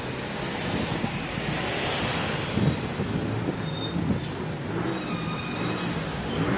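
Tram steel wheels squealing on the rails, high thin tones coming in about halfway through and changing pitch near the end, over the steady rumble of trams and street traffic.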